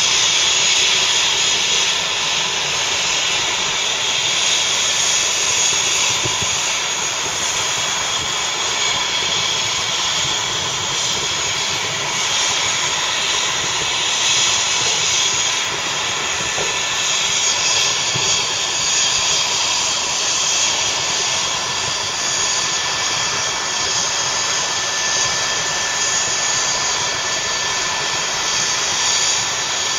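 A turbine engine running at a steady pitch: a continuous jet-like whine over a loud hiss, unchanging throughout.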